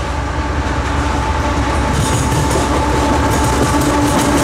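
Lead diesel locomotives of a CSX freight train approaching, the low engine rumble growing steadily louder, with steady whining tones held over it. From about halfway through, a faint clatter of wheels on the rails comes in.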